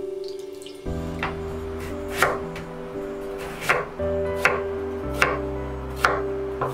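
Chef's knife slicing through a block of tofu and knocking on a wooden cutting board: about six sharp knocks, roughly one a second, starting about a second in.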